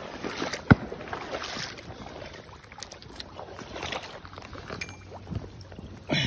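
Wading through shallow marsh water: uneven sloshing and swishing steps, with one sharp knock less than a second in and a louder rush of water near the end.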